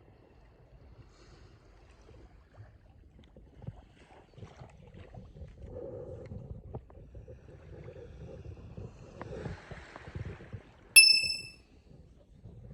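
Low rumbling outdoor noise with scattered small knocks and rustles. About eleven seconds in comes a single short, bright, metallic ding, like a small bell, which is the loudest sound.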